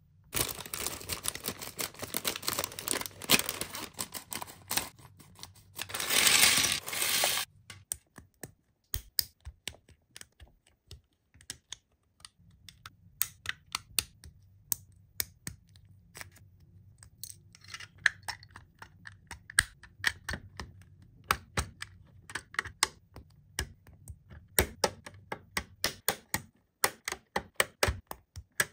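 Plastic toy packaging rustling and crackling for several seconds, loudest just before it stops. Then many irregular light clicks and taps of hard plastic toy parts being handled.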